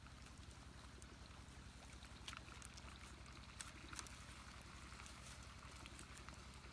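Near silence: faint steady hiss and low hum, with a few soft clicks around two and a half and four seconds in as sticks of firewood are pushed under the wok into a small wood fire.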